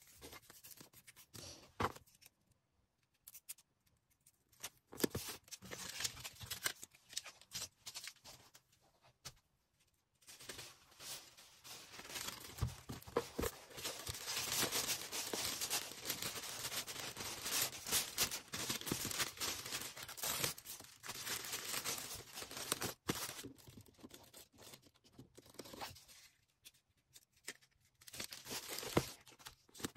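Packing materials being handled. Scattered light clicks and taps at first, then from about ten seconds in a long stretch of dense crinkling and rustling of plastic wrapping, with tearing. It breaks off briefly near the end and goes on more lightly.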